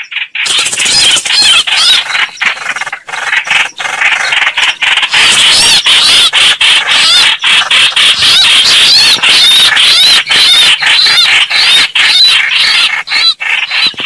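Greater coucal calls played from a recorded lure file: a loud, harsh, squealing chatter with high notes repeating about twice a second and frequent brief breaks.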